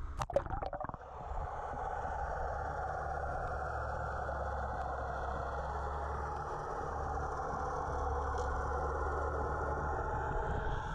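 Water sloshing and splashing against the action camera as it dips below the surface, then a steady muffled drone heard underwater.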